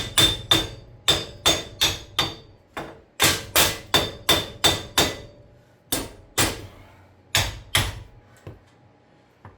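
Hammer striking metal, about eighteen sharp ringing blows in quick runs of three or four with short pauses between, turning to a few lighter taps near the end.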